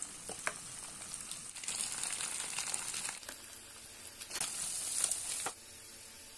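Beaten eggs frying in a non-stick pan while a spatula scrapes and taps as it scrambles them, with sizzling that swells in two stretches and then drops to a faint steady hiss about two thirds of the way through.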